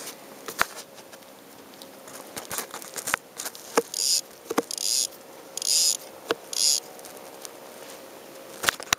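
Shimano Sienna 1000 spinning reel being cranked in four short bursts, a quick whirring rattle each time, as the lightly weighted worm bait is retrieved in twitches. Scattered sharp clicks of rod and reel handling come before and between the bursts.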